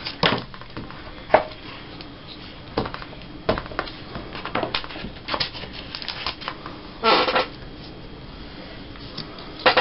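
Paper strips rustling and tapping on a tabletop as they are handled and pressed down onto a tag base, with scattered light clicks and a longer rustle about seven seconds in.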